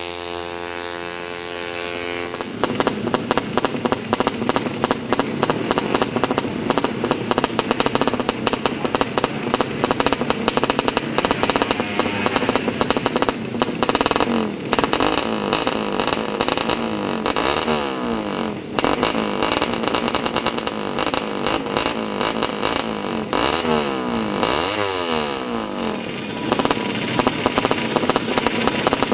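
Drag-racing motorcycle engines revving hard through open exhausts. At first one engine is held at steady revs. From about two seconds in comes a harsh, rapidly pulsing engine sound whose pitch rises and falls several times.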